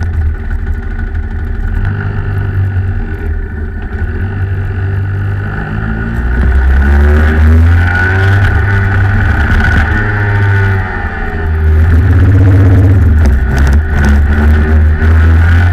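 Rotax Max 125cc two-stroke kart engine running hard on track. Its note climbs and falls as the kart accelerates and lifts off for corners.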